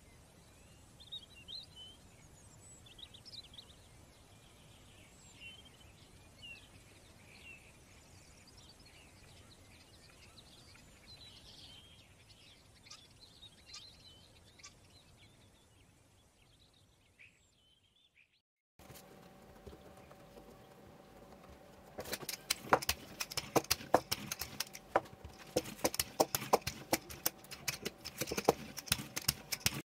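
Faint bird chirps in the background, then a fast, uneven clatter of wooden clicks and knocks from a wooden double-roller rolling pin being worked back and forth over dough on a silicone mat, over a low steady hum.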